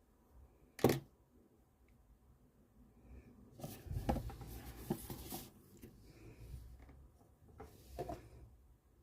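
Faint handling of a blind box and its packaging by hand: a sharp click about a second in, then a stretch of rustling and small knocks, and a few light taps near the end.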